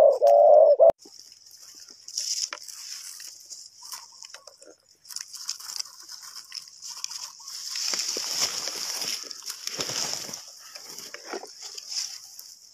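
A dove cooing loudly, cut off abruptly about a second in; after that come scattered rustling and crunching noises over a steady high hiss.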